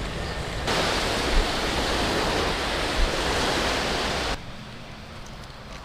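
Shallow surf washing in and foaming around the feet at the water's edge, a steady rushing noise with some wind on the microphone. It swells louder about a second in and drops off sharply about four seconds in.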